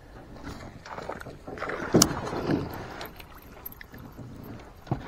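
Knocks, creaks and handling noise in a small flat-bottomed fishing boat on the water, with a sharp click about two seconds in.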